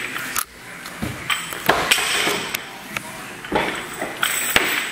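Barbells and bumper plates knocking and clanking: about seven sharp metallic knocks and thuds at uneven intervals, as bars are lifted and set down and plates are handled.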